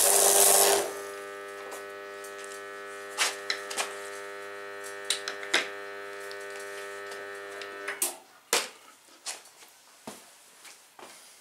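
Electric welding arc crackling for under a second and stopping, followed by the welder's steady electrical hum, which cuts off about eight seconds in. A few sharp metal knocks and clanks sound during and after the hum.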